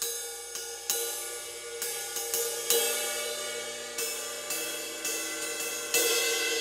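Zildjian S Family 20-inch medium thin crash cymbal (B12 bronze) struck about a dozen times with a wooden drumstick at an uneven pace, the ringing of each hit running into the next. Its attack has a harder edge than a softer thin crash, which comes from its heavier weight of 1,959 grams.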